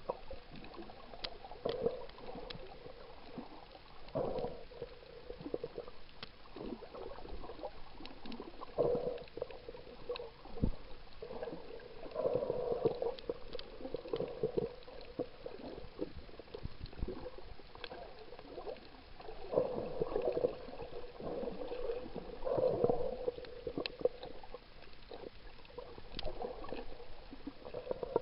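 Muffled underwater sloshing and gurgling of water moving around a camera held just below the surface. The noise swells every few seconds, with scattered small clicks.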